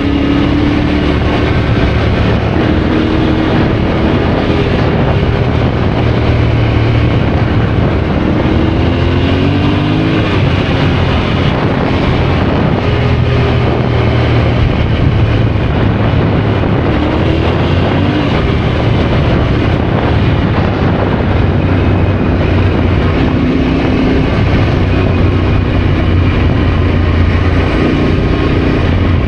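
Yamaha Ténéré adventure motorcycle running under way, its engine note rising and falling every few seconds with the throttle, over a steady rush of wind and road noise.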